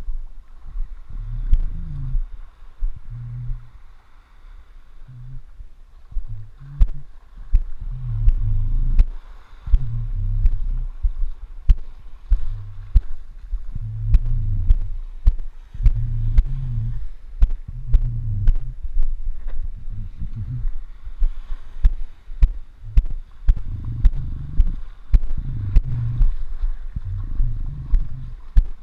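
Muffled water sloshing around the legs of someone wading in shallow water, about one surge a second. Scattered sharp clicks come through over it.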